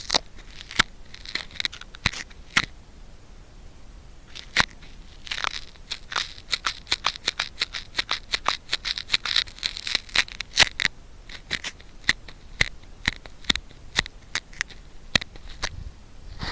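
Sticky cotton swab rubbing and pressing in an ear during ASMR ear cleaning, giving sharp crackling clicks. The clicks come several a second through the middle, with softer rubbing noise between them, and are sparser near the start and end.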